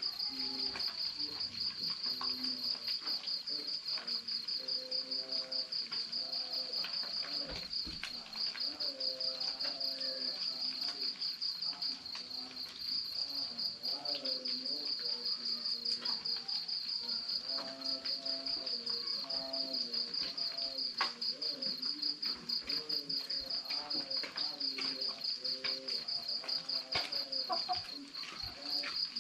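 Crickets chirping in a steady, fast-pulsing trill, with scattered small crackles from a wood cooking fire.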